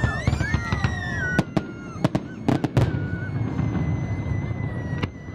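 Aerial fireworks going off: a string of sharp bangs and crackles from about one and a half to three seconds in and another bang near the end, with long high whistles over them.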